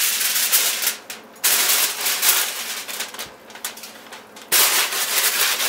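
Aluminium foil crinkling and crackling as it is pressed down and crimped over the rim of a cooking pot to seal it for dum. It comes in bursts, quieter in the middle and loud again near the end.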